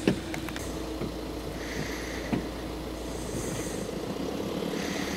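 A vehicle engine idling steadily, with a couple of sharp knocks: one right at the start and one about two and a half seconds in.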